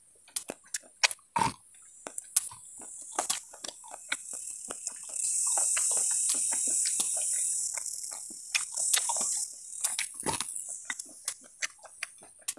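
Close-up chewing and biting of boiled corn on the cob: many short crisp clicks and crunches of kernels being bitten off and munched. A steady high-pitched buzz rises in the background and is loudest around the middle.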